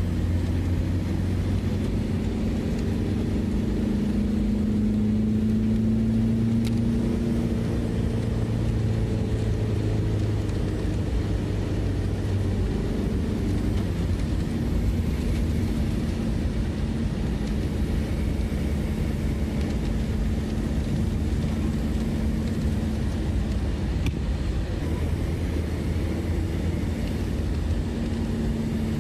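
An engine running steadily: a continuous low droning hum with a slight drift in pitch.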